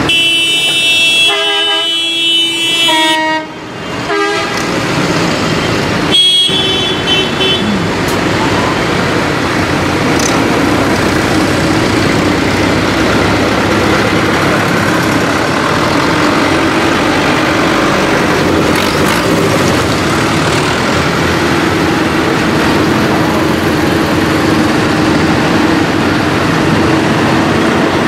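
A horn sounds for about three seconds, changing pitch in steps, and gives a second short blast about six seconds in. Tractor diesel engines run steadily underneath as the tractors drive past.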